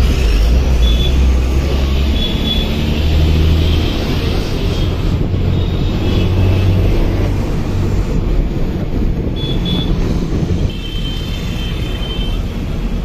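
Bus engine running with a steady low rumble and road noise, heard from inside the bus cabin as it moves slowly.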